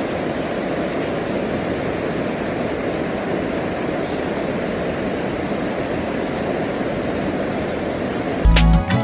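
Steady rushing of river water, an even noise with no distinct events. Music starts near the end.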